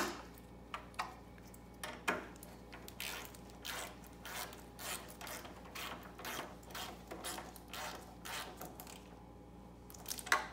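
Hand ratchet wrench clicking in short runs, about two or three clicks a second, while snugging down the bolts and nuts of a snowblower engine cover.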